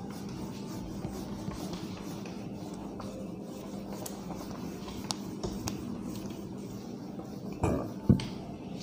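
A cloth wiping a whiteboard clean, a faint rubbing over a steady room hum, with two short louder sounds near the end.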